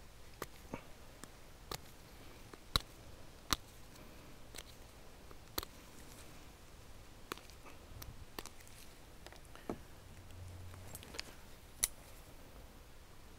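Faint, irregular small clicks and light taps, about one a second, over a low background hiss.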